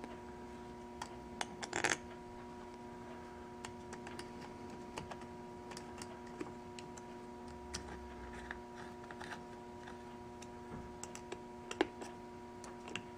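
Small scattered clicks and taps of metal screws and a screwdriver as the screws are set into a Keihin CVK40 carburetor's top cap and run down, with a short cluster about two seconds in and a sharper click near the end. A steady faint hum sits underneath.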